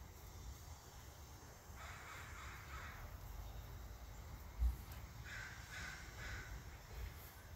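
A crow cawing several times, with three short caws in quick succession a little past the middle. Just before them comes a single low thump.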